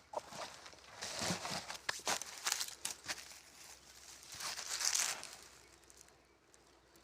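Irregular rustling and crunching in uneven bursts, dying away about five and a half seconds in; no chainsaw engine is running.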